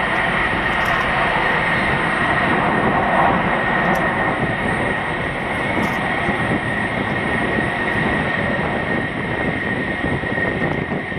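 McDonnell Douglas F-15D Eagle's twin Pratt & Whitney F100 turbofans in full afterburner during take-off and climb-out: loud, steady jet noise with a high whine running through it.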